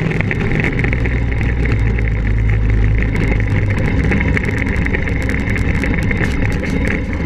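Kart cross buggy's engine running hard while driving over rough ground, heard close up from a camera mounted on the buggy, with many short knocks and rattles throughout. The deep low rumble eases about three and a half seconds in.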